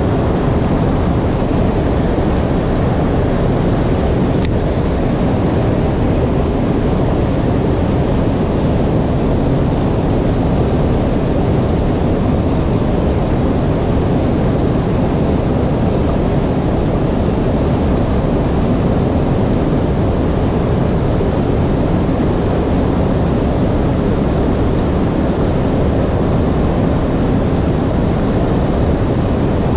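Steady low roar of rushing water from the river dam, even and unbroken throughout.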